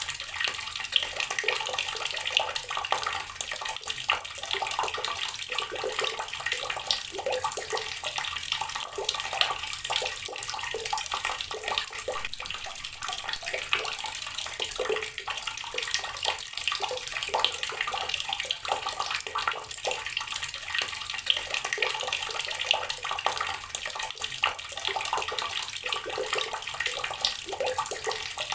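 Water running steadily from a tap and splashing onto rocks, a continuous bright splashing with many small drips and spatters.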